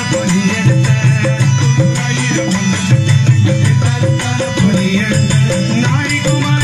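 Devotional bhajan music. A harmonium plays a melody over held drone notes, with a steady beat of jingling, rattling percussion keeping time.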